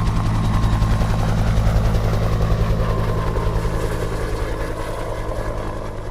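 A heavy engine rumbling steadily with a fast, even pulse, slowly fading.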